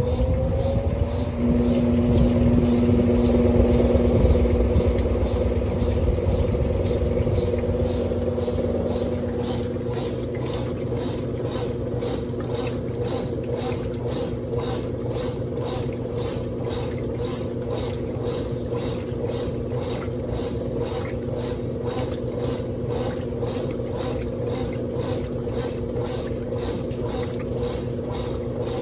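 Brastemp top-load washing machines running: a steady motor hum with loud churning for the first several seconds. After that it settles into a rhythmic swish about twice a second.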